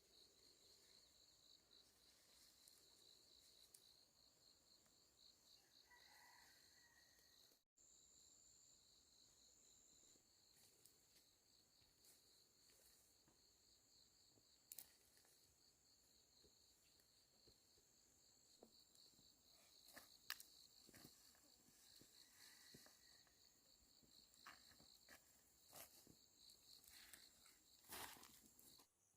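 Faint, steady high-pitched insect chirring, with scattered light clicks and taps that come more often in the last several seconds.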